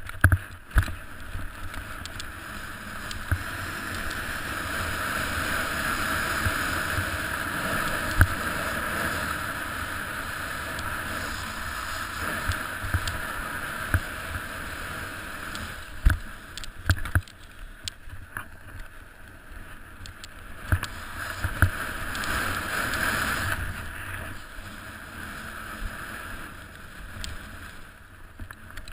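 Snowboard sliding and carving through snow at speed: a steady hiss and scrape that swells and fades with the turns, with wind on the microphone. There are a few sharp knocks, near the start, about eight seconds in and in a cluster around sixteen to seventeen seconds.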